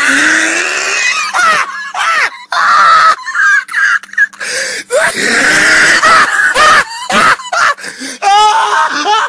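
A person laughing hard in loud, wheezing, shrieking bursts, ending in a few short squeals.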